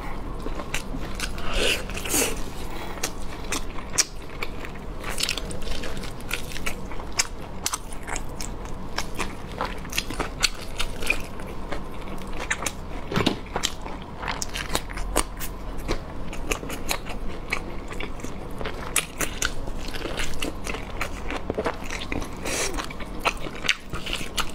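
Close-up eating sounds of braised lamb leg: biting and tearing meat off the bone and chewing it, with many small wet mouth clicks and smacks.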